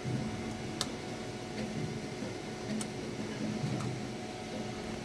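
A few faint plastic clicks and handling noises as the Robox Ruby print head is worked into the 3D printer's carriage, over a steady low room hum.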